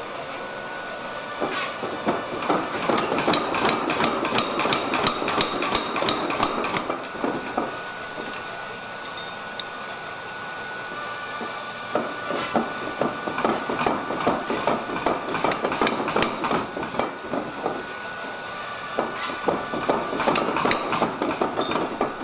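A 500 lb Bradley power hammer pounding a hot steel swage block in rapid, evenly spaced blows. It runs in three bursts of several seconds each, with short pauses between them. A steady high tone sounds underneath throughout.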